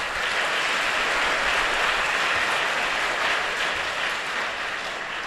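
Audience applauding, a steady dense clatter of many hands that eases off near the end.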